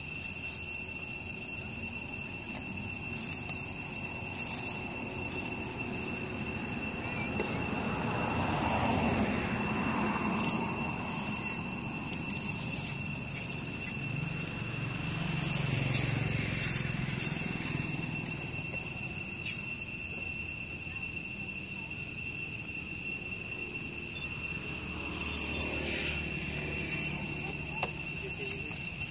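Outdoor ambience of a steady high-pitched insect drone, with a low rumble swelling twice in the middle and a few faint crackles.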